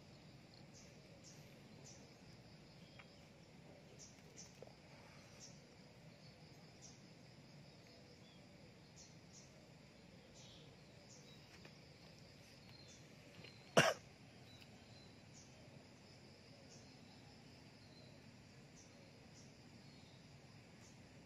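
Quiet outdoor background with faint, short, high chirps repeating every second or so, and one short sharp sound about fourteen seconds in.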